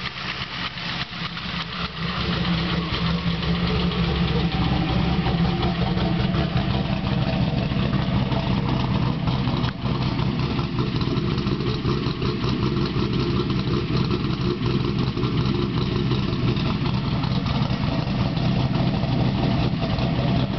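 383 cubic-inch LSX V8 engine running steadily, getting louder about two seconds in, with the piston slap and squeak it is known to have.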